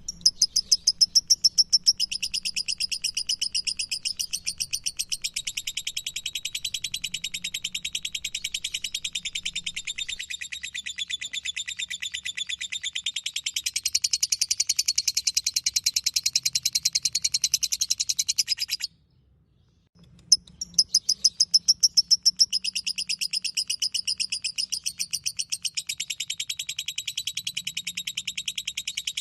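Lovebird's 'ngekek', a long unbroken chatter of fast, high, shrill repeated notes. It breaks off abruptly about two-thirds of the way through, falls silent for a moment, then starts again.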